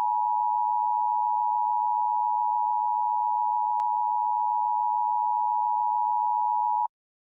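Emergency Alert System attention signal: the steady two-tone alert tone of a required monthly test, which stops abruptly near the end.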